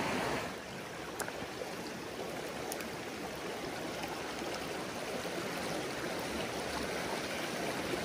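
Shallow mountain stream running over stones and gravel, a steady rushing and rippling, with two faint ticks early on.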